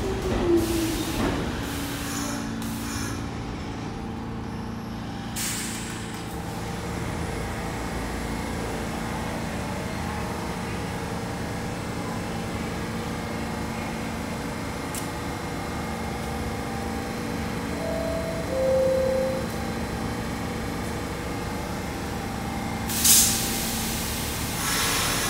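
New York City subway train standing at a station with a steady electrical hum. A falling whine dies away at the start as it comes to rest, and short air hisses follow. A two-note descending door chime sounds about 18 seconds in, and a loud burst of air-brake hiss comes near the end.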